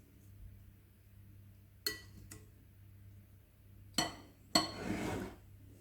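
Serving utensils clinking against a dish while salad is plated: two light clinks about two seconds in, then two louder clinks near the end, the last trailing into a brief ringing scrape.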